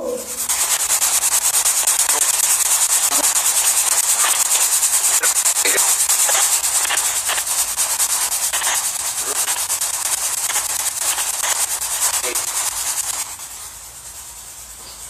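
Loud radio static from a spirit box sweeping through stations, rapidly chopped, with a few brief fragments breaking through the hiss. It drops to a much quieter hiss about 13 seconds in.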